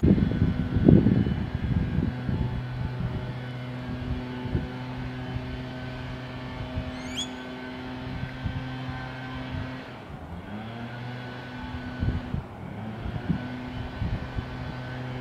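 A vehicle engine running steadily with a low hum. Its pitch rises briefly about ten seconds in. A few knocks sound in the first second or so.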